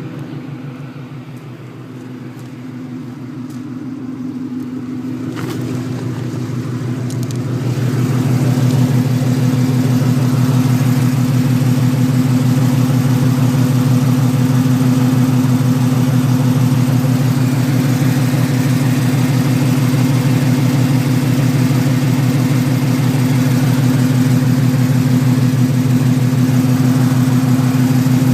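Car engine idling steadily with an even pulsing exhaust note, growing louder over the first several seconds and then holding steady; the owner suspects an exhaust leak.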